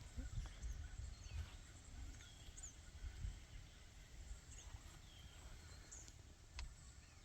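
Faint outdoor ambience: scattered short bird chirps over a steady low rumble of wind.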